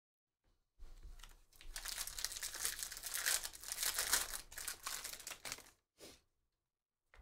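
Foil wrapper of a Bowman baseball card pack being torn open and crinkled by hand for about five seconds, with one short rustle just after.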